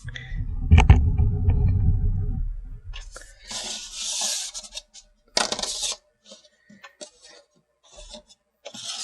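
Toy parts and plastic packaging being handled close to the microphone. A low rumbling bump with a knock runs for the first two seconds or so, then come several short crinkly plastic rustles.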